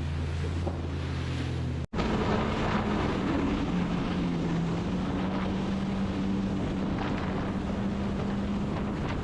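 Jet ski engine running with a steady drone. About two seconds in, the sound cuts to a louder take where wind buffets the microphone and water rushes, with the engine tone still running underneath.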